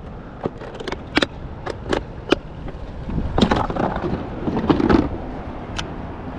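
Sharp clicks and knocks of hard objects, about half a dozen in the first two and a half seconds and then a denser cluster of knocks and rustling in the middle, over a steady wash of wind and water noise.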